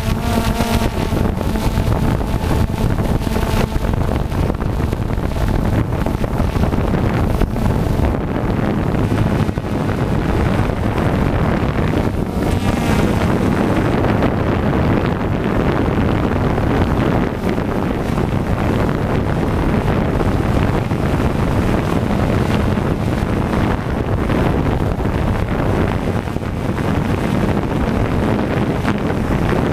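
Quadcopter's motors and propellers running steadily while it hovers, heard from the GoPro camera riding on the aircraft, mixed with wind noise on the microphone.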